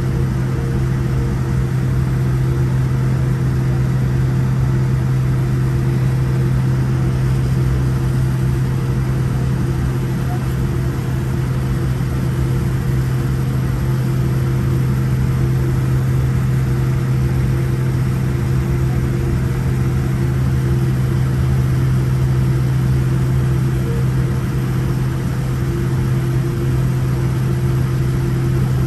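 Steady cabin drone of a Boeing 787-10 Dreamliner with its engines at idle, heard from inside the passenger cabin: a constant low hum with a few fixed tones above it.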